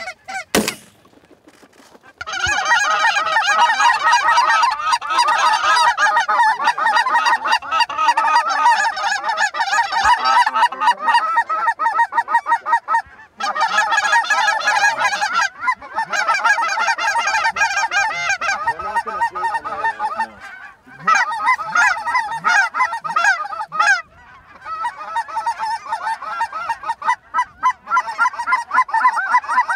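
A large flock of lesser Canada geese calling overhead: a dense, loud chorus of overlapping high yelps and honks, with a few brief breaks.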